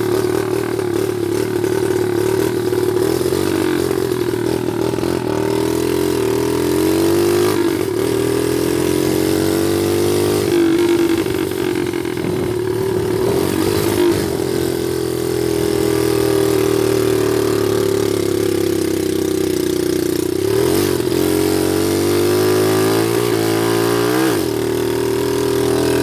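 Small dirt bike's engine running while ridden, its pitch climbing as it accelerates and dropping back at each gear change, a few times across the ride, most clearly around the middle and near the end.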